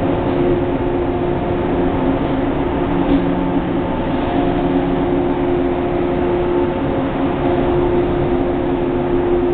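Shinano Railway 115 series electric train pulling out of the station past the platform: a steady mechanical hum over the running noise of the cars.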